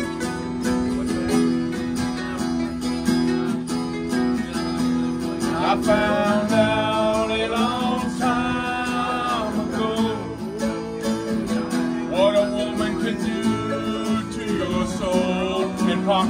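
Acoustic guitar strumming chords in a country-folk style, with a voice carrying a wavering melody over it from about six seconds in.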